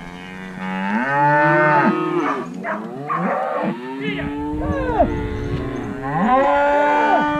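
Several Hereford cattle mooing, long drawn-out calls overlapping one after another, loudest about a second in and again near the end.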